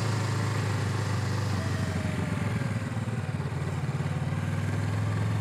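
Motorcycle engine running steadily at a low, even idle, with a faint falling whine about two seconds in.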